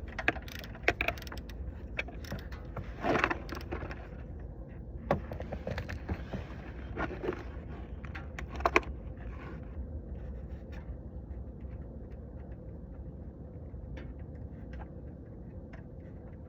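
Metal clicks and scrapes of a wrench working a stubborn oil drain plug loose under a car, busiest in the first half and thinning to a few scattered ticks later, over a steady low hum.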